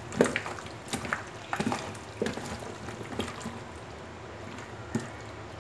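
Gloved hands squeezing and turning spiced raw chicken pieces in a plastic bowl: irregular wet squishes and slaps, the loudest just after the start.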